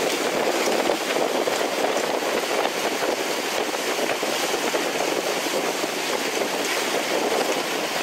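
Wind buffeting the microphone and water rushing past the hull of a Tricat 25 Evolution sailing fast in a strong breeze and choppy sea: a steady rush with a rapid flutter.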